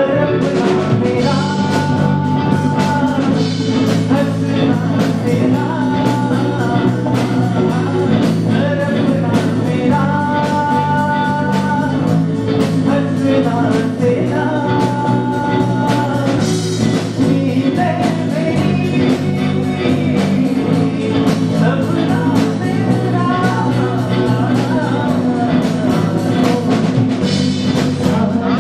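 Live rock band playing: a male vocalist singing over electric guitar, drum kit, bass and keyboard, holding long sung notes now and then.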